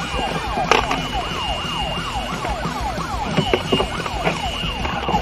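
Electronic siren-like warbling: fast, overlapping rising and falling pitch sweeps, about three or four a second, over a steady high tone that comes and goes.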